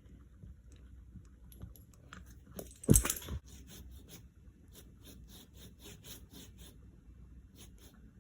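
Silky hand saw cutting goat willow wood in quick, even strokes, about three to four a second, with one loud knock about three seconds in.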